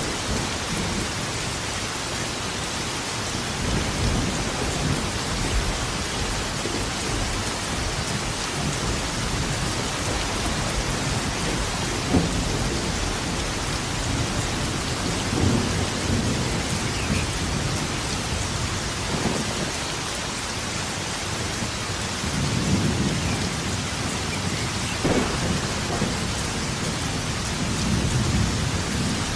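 Thunderstorm: steady heavy rain with rolling thunder rumbling in several swells, a few sharper cracks among them.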